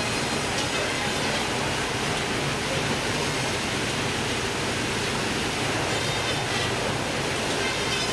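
Steady, even din of a fish-processing line running: conveyor belts and machinery with a wash of water, level throughout with no distinct knocks or events.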